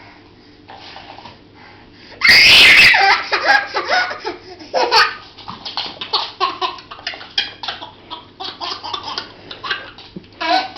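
A baby laughing: quiet at first, then a loud burst of laughter about two seconds in, followed by a long run of short, choppy laughs.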